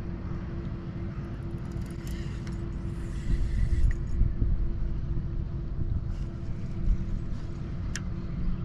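Strong wind buffeting the microphone: a steady low rumble with a faint constant hum, and a few brief light rattles about halfway through.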